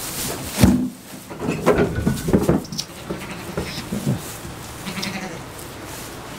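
Goats bleating in several short calls, with a thump about half a second in that is the loudest sound.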